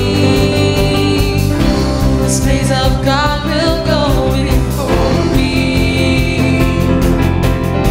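Upbeat rock-style worship song with a steady drum beat, guitars and a lead melody that slides between notes.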